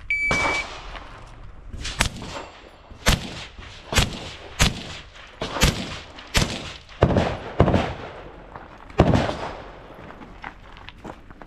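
A shot timer's high start beep, then a string of about nine rifle shots, fired unevenly about half a second to a second and a half apart.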